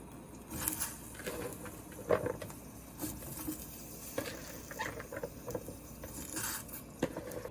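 Irregular soft rustling and scraping with a few light knocks, from string beans being handled and prepared by hand.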